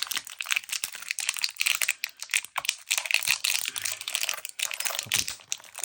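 Plastic blister packaging being crinkled, bent and torn by hand to free a padlock, a dense run of irregular crackles and rustles.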